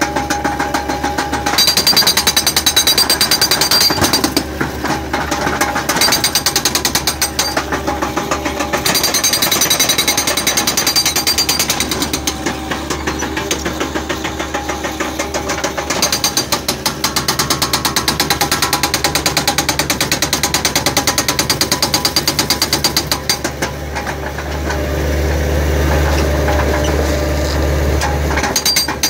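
Hydraulic breaker on a skid-steer loader hammering into a concrete step: rapid, loud percussive blows in spells with short lulls. The loader's engine runs underneath and grows louder for a few seconds near the end.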